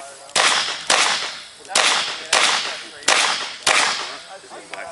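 Six shots from a Smith & Wesson 610 10mm revolver, fired in three quick pairs about half a second apart, each shot with a short trailing echo.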